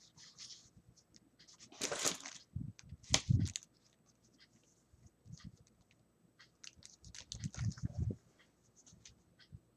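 Paper and card being handled: a rustle about two seconds in, a sharp click just after three seconds, and soft knocks and small ticks near eight seconds.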